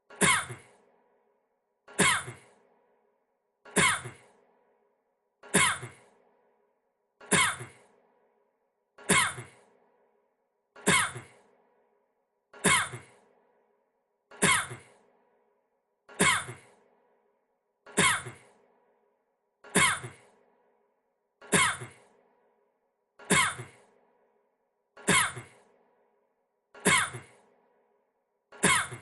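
A man's single short cough, repeated identically about every 1.8 seconds as a loop; each cough starts sharply and fades within about half a second.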